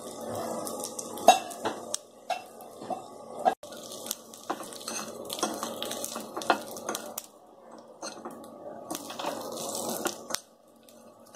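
Dried salted fish sizzling in hot oil in a frying pan, while a metal fork scrapes and clinks against the pan, turning the pieces over. The clinks come irregularly throughout, the sharpest about a second in.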